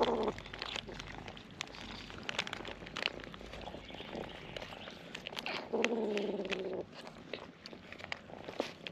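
Stray cats eating, with many short crunching clicks of food being chewed. A cat meows once, a drawn-out call lasting about a second, around six seconds in.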